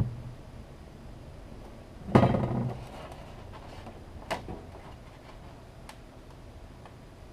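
Parts of a vintage Cowley level being handled and set down on a hard surface during a teardown: a short knock at the start, a louder clatter about two seconds in, then a sharp click a couple of seconds later and a faint tick.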